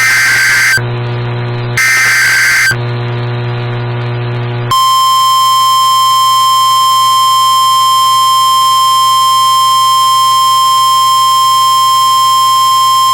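Emergency Alert System weather alert on NOAA Weather Radio. First come two harsh, buzzing bursts of SAME digital header data, each just under a second long and about a second apart. Then, about five seconds in, the steady 1050 Hz warning alarm tone starts and holds without change, signalling that a warning message follows.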